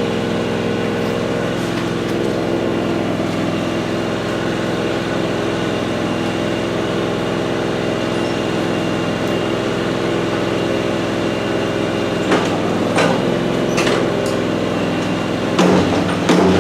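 Tractor engine running at a steady idle. A few knocks and a change in the engine's low note come in the last few seconds.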